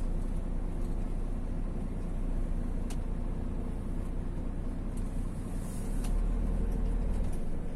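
Steady low rumble of a lorry's engine and road noise heard inside the cab while driving. The deep rumble swells a little about six seconds in, with a couple of faint clicks.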